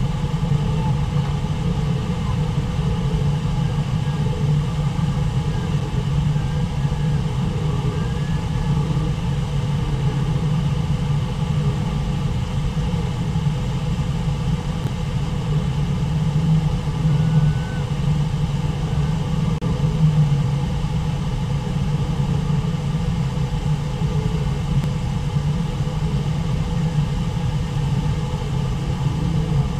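Steady rushing of Brooks Falls, a waterfall pouring over a river ledge into white-water rapids: a loud, even, deep noise with no break.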